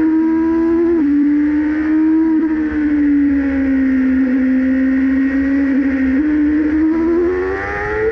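Alfa Romeo Racing Formula 1 car engine heard on board at a fairly steady, moderate pitch. The note drops slightly about a second in and climbs near the end as the revs rise.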